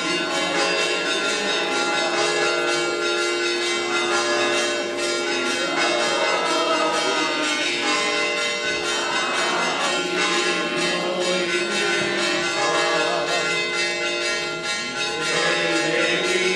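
Church bells ringing a continuous peal, with rapid overlapping strikes and a steady ringing hum.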